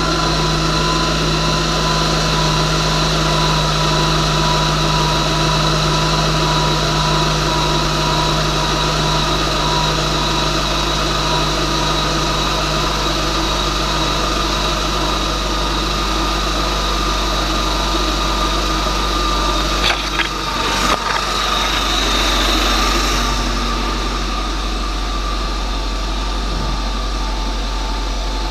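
Turbocharged Honda S2000 four-cylinder engine idling steadily on its first start-up. A few sharp knocks come about two-thirds of the way through, and the running gets slightly quieter a few seconds later.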